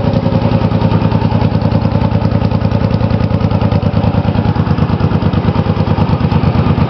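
Suzuki C50's V-twin engine idling steadily through gutted stock exhaust pipes fitted with cut-down cherry bomb mufflers, giving an even, pulsing exhaust note.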